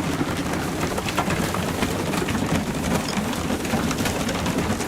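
A loft of young racing pigeons moving about and feeding: a steady, dense patter of small taps and rustles.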